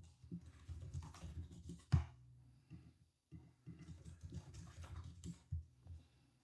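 Typing on a computer keyboard with a few mouse clicks, in two short runs of quick taps, with one sharper click about two seconds in.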